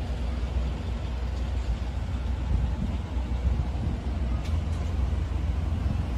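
Steady low rumble of outdoor city ambience.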